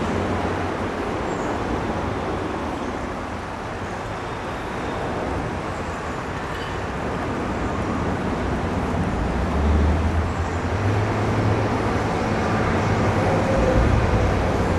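Steady rushing background noise with a low rumble that swells about two thirds of the way through.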